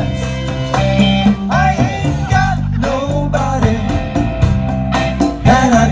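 Live band playing a Latin rock song: a melodic guitar line with bending notes over bass and steady accompaniment.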